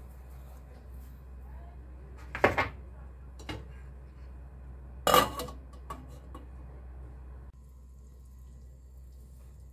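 Kitchen clatter of cookware: a few short clinks and knocks over a low steady hum, the loudest about five seconds in.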